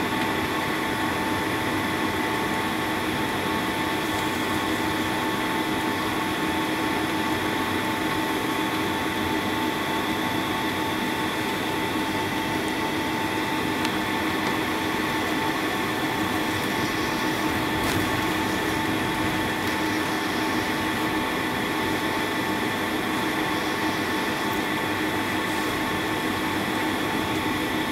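Jet airliner cabin noise during the taxi: the engines at taxi power and the cabin air running steadily, a constant rushing drone with a steady whine over it.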